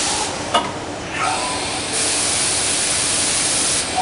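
Bacci Master-Win 5-axis CNC woodworking centre running, giving a loud hissing rush that swells about two seconds in and drops off near the end, with a sharp click about half a second in.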